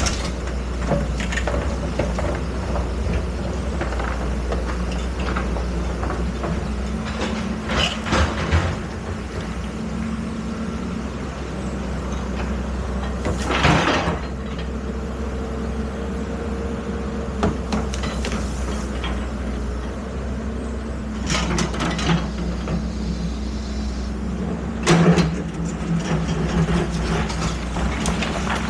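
Excavator's diesel engine running steadily, with several short, louder bursts of noise from the working machine.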